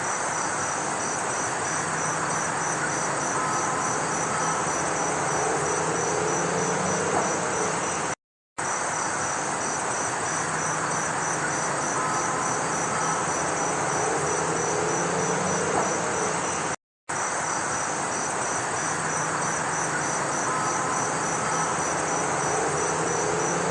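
A steady, loud chorus of crickets and other insects plays three times over, with brief breaks about a third and two thirds of the way through. A few seconds into each play, faint chime-like tones come through, like the chimes of a music box.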